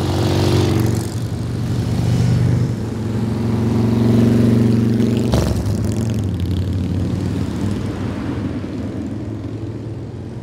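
Touring and cruiser motorcycle engines running as a group of motorcycles rides past, a low steady drone that swells and then eases off. A sharp click comes about five seconds in, and the sound fades out gradually near the end.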